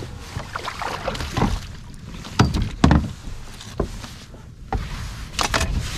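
Irregular knocks and rustling on a kayak as a big blue catfish is hauled aboard and handled, with two heavy thumps about two and a half and three seconds in and a few sharper clicks near the end.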